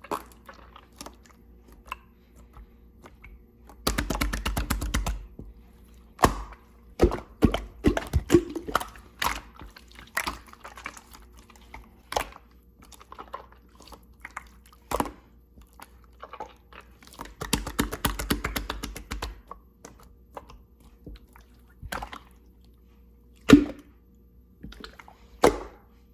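Slime being squished and stretched by hand: sticky wet clicks and pops, with two longer runs of rapid crackling about four and eighteen seconds in, and a sharp single pop near the end.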